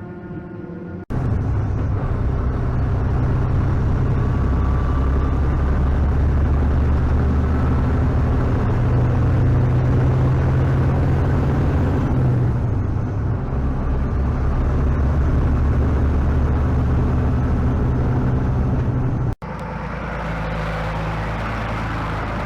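A large diesel farm machine's engine running steadily, a loud low drone with a noisy rumble above it. It starts abruptly about a second in, just after a brief stretch of ambient music. Near the end it cuts to a somewhat quieter take of the same kind of engine sound.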